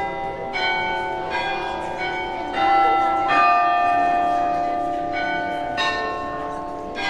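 Carillon bells of the Graz Glockenspiel playing a slow tune: single struck notes about a second apart, each ringing on into the next, with one longer held note in the middle.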